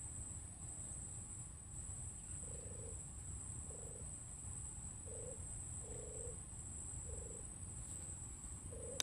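Short croaking animal calls, each about half a second long, repeat roughly once a second from a few seconds in. Behind them run a steady high-pitched insect drone and a low rumble.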